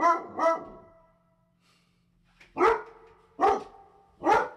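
A dog barking: two quick barks, a pause, then three single barks about a second apart.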